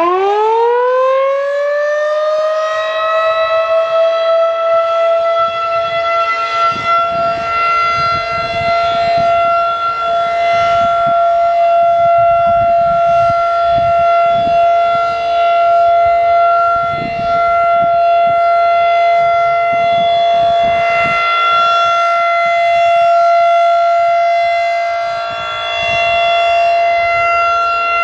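Federal Signal 2001-DC outdoor warning siren sounding the steady Alert signal. It winds up in pitch over the first couple of seconds, then holds a loud, steady tone.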